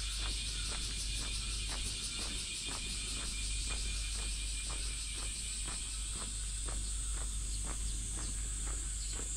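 Footsteps on a paved path at a steady walking pace, about two a second, over a steady high-pitched insect chorus.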